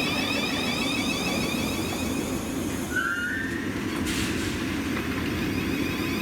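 Electric train running through the station: a steady rumble of wheels on rail with a high, wavering whine that fades for a second or so in the middle and returns near the end.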